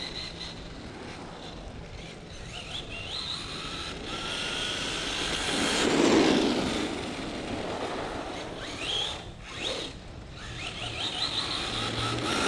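Arrma Vorteks 2WD Mega RC truck's brushed electric motor whining as it drives on wet pavement, with several short rising whines as the throttle is applied. Its tyres hiss on the wet asphalt. It is loudest as it passes close about six seconds in.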